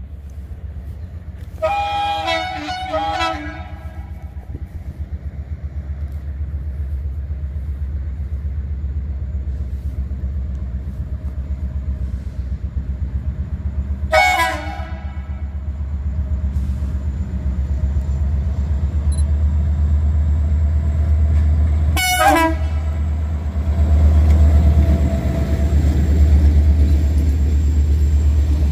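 A train horn sounds three times as a locomotive-hauled passenger train draws into the station: a longer broken blast about two seconds in, then short toots near the middle and later on. Under the horn the train's steady low rumble grows louder as it approaches.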